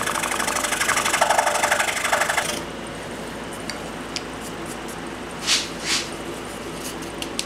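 Scroll saw cutting through a glued stack of balsa, the blade chattering in rapid even strokes. About two and a half seconds in the cutting sound drops away and the saw runs on more quietly. Two short hisses and a few light clicks follow.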